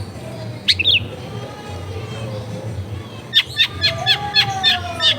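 Long-tailed shrike (cendet) calling: a single harsh call about a second in, then from about three seconds in a rapid run of sharp chattering notes, roughly six a second.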